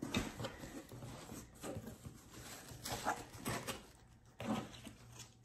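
Quiet rustling and handling of a cardboard shipping box as its flaps are opened, with a few short soft whines in between.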